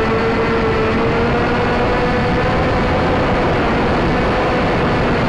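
Firebird Stratos RC plane's electric motor and propeller whining steadily in flight, its pitch creeping slightly upward, heard from a camera on the plane with heavy wind rush over the microphone.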